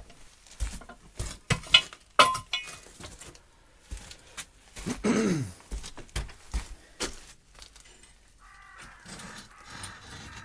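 Irregular knocks, clacks and scrapes of hand work on a timber arch former, with a short falling pitched sound about five seconds in and a faint steady whirr near the end.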